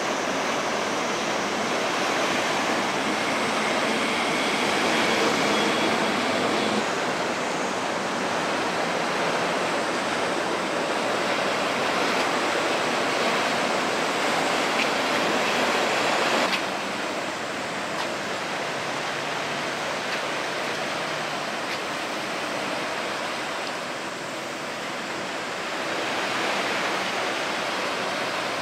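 Steady rushing and splashing of open water, an even noise without any tone. It drops abruptly to a lower level about sixteen seconds in.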